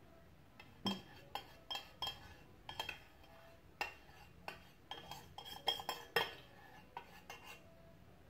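Metal spoon scraping and knocking against the inside of a stainless-steel saucepan, scooping out the last of a thick cream: irregular clinks and scrapes, a few each second.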